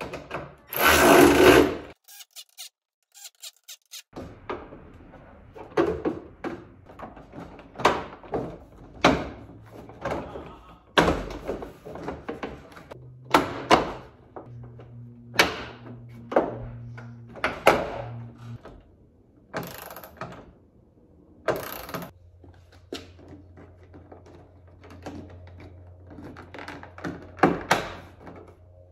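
Plastic push clips of a Honda Civic hatchback's tailgate trim panel snapping into place as the panel is pressed home by hand: a dozen or so separate sharp snaps spread over the stretch. Near the start there is a short loud burst of another sound.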